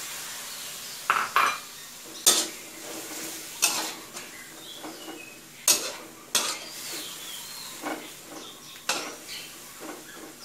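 Metal spatula scraping and clanking against a wok while stir-frying long beans, pork belly and meatballs in curry paste, about nine sharp strikes at uneven intervals. A faint sizzle from the wet stir-fry runs underneath.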